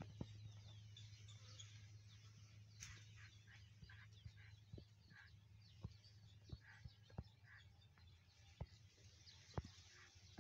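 Faint scattered bird chirps and short calls, with sharp clicks at irregular intervals.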